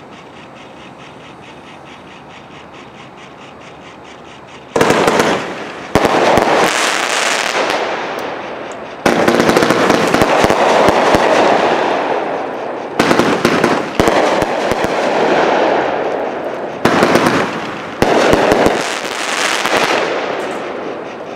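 AFW Mighty Mantis 500-gram, 32-shot firework cake firing. After a few quiet seconds it launches its shots in about seven quick volleys, each followed by a long crackling tail that fades before the next volley.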